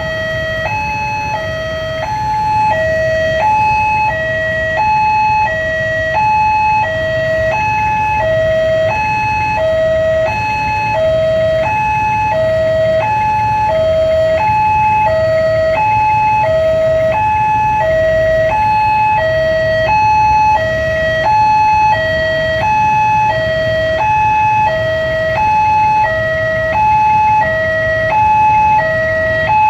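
Electronic warning alarm of a railway level crossing sounding with the barrier down. It alternates steadily between a high and a low tone, about one high-low cycle a second. The low rumble of waiting road traffic lies underneath.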